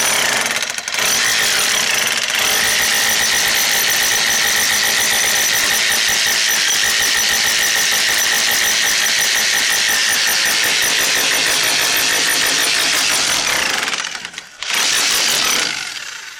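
Makita electric rotary hammer driving a chisel bit into stony gravel ground: loud, steady, rapid hammer blows. It stops about 14 seconds in, runs again for about a second, then stops.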